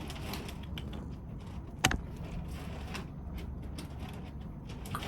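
A single sharp click of a pet-training clicker about two seconds in, marking the cat's behaviour so that a treat follows, over a low steady room hum.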